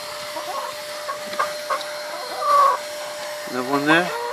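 Domestic hens clucking and calling while they feed: scattered short clucks, a louder call about two and a half seconds in, and a drawn-out rising call near the end.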